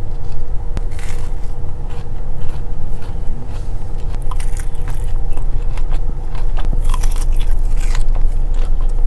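Close-up crunching bites and chewing of a crispy fried chicken finger, with loud crunches about a second in, near the middle, and twice near the end. A steady low engine rumble sits underneath.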